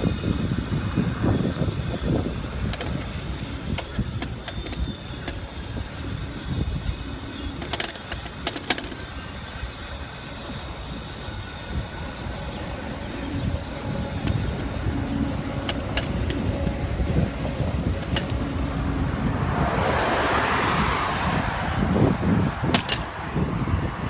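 Wind rumble on the microphone of a moving bicycle, with a few sharp clicks and rattles now and then. A car passes about twenty seconds in, its tyre noise swelling and fading.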